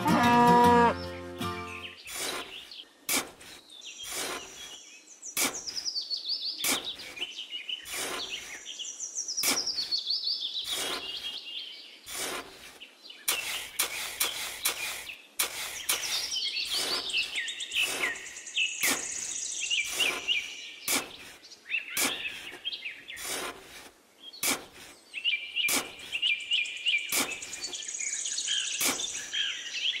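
Birds chirping and trilling, over a run of short, sharp scrapes and clicks as a small hand tool digs into damp sand. A plucked-guitar tune ends about two seconds in.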